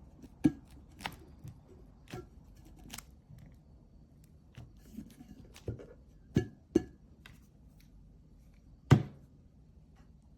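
Irregular knocks and clicks of hard objects being handled and set down, about eight of them, the loudest near the end; no motor running.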